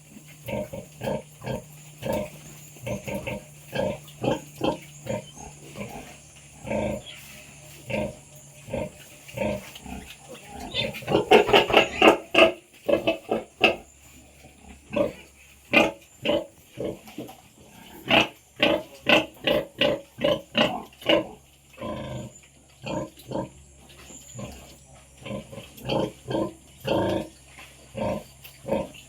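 Pigs grunting in short, repeated grunts about two a second, with a louder, busier run of calls about eleven seconds in.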